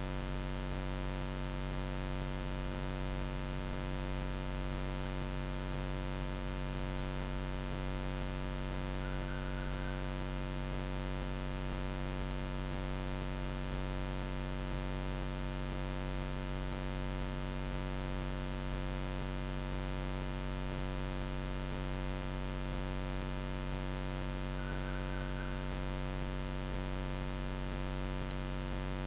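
Steady electrical buzzing hum from a Moultrie trail camera's own electronics, unchanging throughout. Two faint short chirps come through it, about ten seconds in and again near twenty-five seconds.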